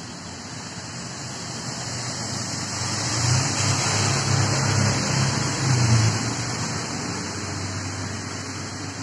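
A vehicle passing by: a noise with a low engine hum swells, peaks between about three and six seconds in, then fades.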